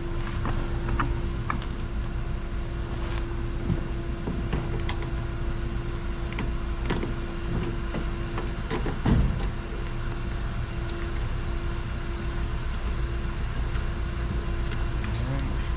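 Scattered light clicks and knocks of a hand tool removing a 7 mm bolt at the bumper, with one louder knock about nine seconds in. A steady mechanical hum runs underneath.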